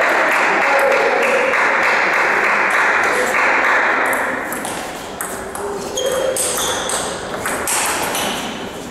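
A table tennis rally: the ball clicks sharply off the bats and the table in a quick irregular run, starting about five seconds in. Before that, a loud wash of crowd voices and noise fills the hall and fades away.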